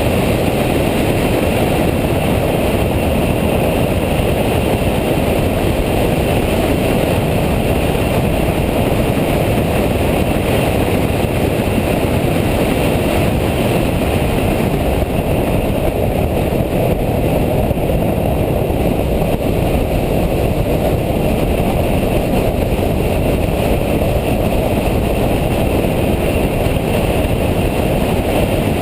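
A Nissan Nismo car running at track speed, heard from inside the cabin as a loud, steady mix of engine, tyre and wind noise.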